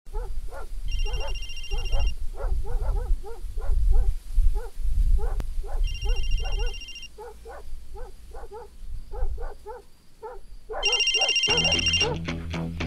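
A dog barking over and over, two or three barks a second, while a phone rings three times about five seconds apart, under a low rumble. Music comes in near the end.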